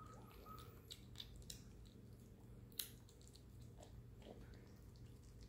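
A kitten eating kibble mixed with wet food from a steel bowl: faint chewing with small crunches and clicks, one sharper click a little before the middle.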